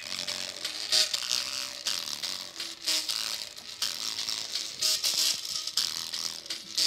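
Music played loud through a bare speaker tweeter wired up with alligator clips, tinny with little bass and a strong beat about once a second. The tweeter is being driven hard toward blowing out.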